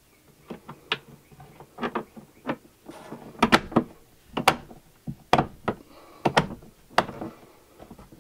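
Irregular sharp plastic clicks and knocks as a snap-on plastic cover is pressed and worked onto a ceiling-mounted RV antenna control plate with its turning knob, about twenty in all, loudest in the middle.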